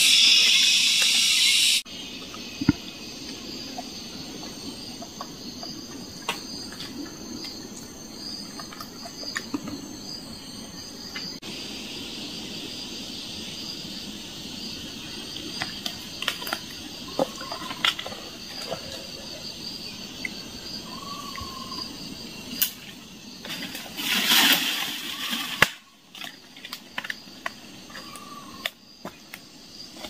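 A steady high insect drone, with scattered light clicks and rustles as fallen fruits are picked from the leaf litter and dropped into a plastic basket. A louder hiss at the start stops abruptly about two seconds in, and another swells briefly a little before the end.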